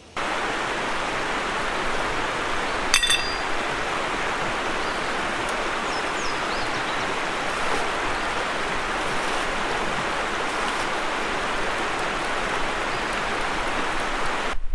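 A river rushing steadily over stones and slate bedrock, an even rush of water. A single sharp clink rings out about three seconds in.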